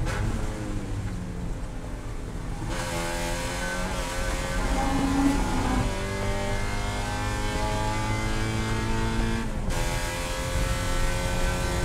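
Spec Miata's four-cylinder engine heard from inside the cockpit at racing revs. Its note falls as the car brakes for a corner, the driver gets back on the throttle about three seconds in and the engine pulls hard. Near the end the sound breaks briefly for an upshift, then rises again.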